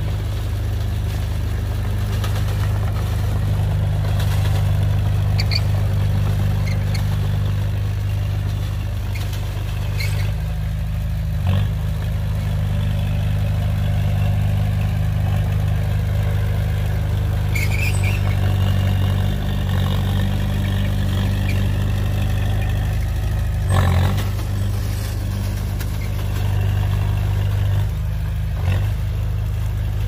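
Heavy diesel engine of earthmoving equipment running steadily at a low, even pitch. Three short knocks come through over it, the loudest about two-thirds of the way in.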